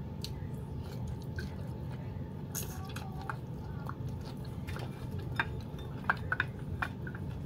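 A person chewing sawi (mustard greens) eaten by hand: wet mouth sounds with scattered short clicks and smacks, more of them in the second half, over a steady low background hum.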